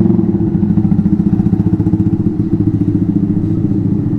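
Motorcycle engine idling steadily close by, with an even, rapid pulsing and no revving.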